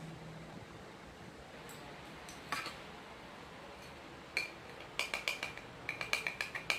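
Makeup containers and tools being handled, making light hard clicks and clinks: a couple of single taps, then a quick run of about a dozen taps in the last two seconds.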